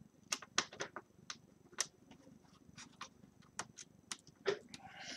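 Irregular light clicks and ticks, about a dozen, from a Phillips screwdriver working small screws out of a laptop's LCD panel frame, with a somewhat stronger click near the end.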